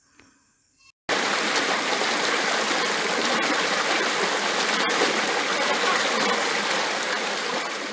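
Mountain stream rushing over rocks: a steady, even water rush that starts abruptly about a second in, after near silence, and eases off slightly near the end.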